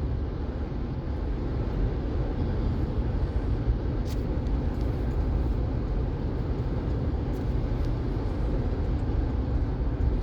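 Steady road and engine noise of a moving car heard from inside the cabin, a constant low rumble with tyre hiss above it.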